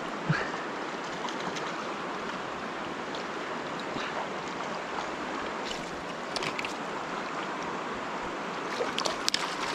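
River current rushing steadily over stones, with a few brief sharp ticks near the middle and end.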